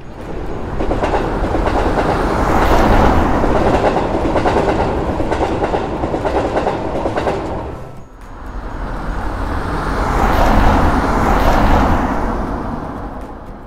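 A train passing with a rapid clatter of wheels on the rails. It swells and fades, then a second pass begins about eight seconds in, grows louder and fades again near the end.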